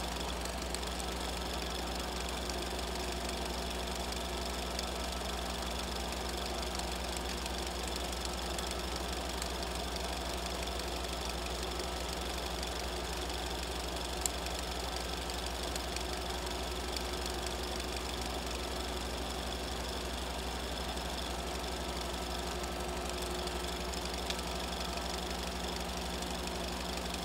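Steady machine hum and whir with a low electrical-type hum under it, unchanging throughout; one sharp tick about fourteen seconds in.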